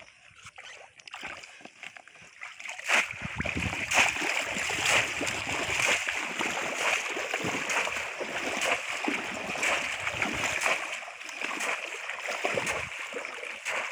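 Muddy pond water splashing as a conical bamboo polo fish trap is pushed down into the shallows and a person wades through the water. Quiet at first, then splashing starts about three seconds in and carries on with many short, sharp splashes.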